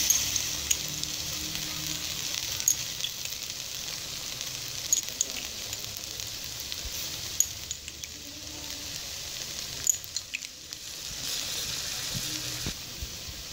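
Sweetened rice sizzling in a hot steel pot as milk is spooned over it: a steady sizzle with occasional sharp pops.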